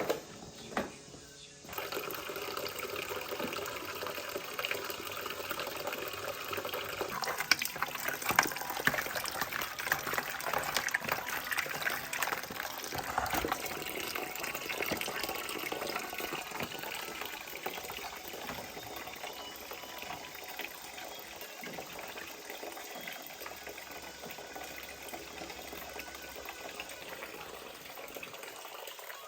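Running water splashing, as from a tap into a sink or basin, with many small clicks of things being handled in it. It starts about two seconds in after a sharp knock and is busiest in the middle.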